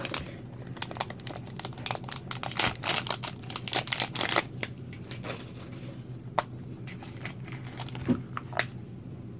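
Plastic-foil toy packaging crinkling and tearing as it is opened by hand: a dense run of crackles in the first half, thinning to scattered rustles later.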